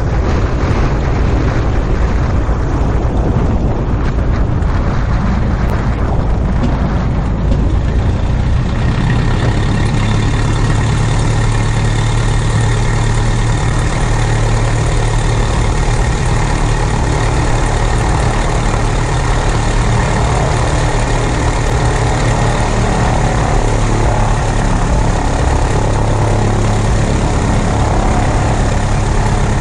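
Cessna 172 amphibian's piston engine and propeller running at low power as the plane taxis after landing: a steady low engine hum with rushing noise, which grows fuller and brighter about eight seconds in.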